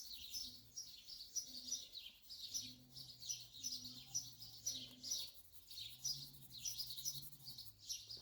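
Small birds chirping rapidly and continuously, several short high chirps a second, with a faint low hum beneath.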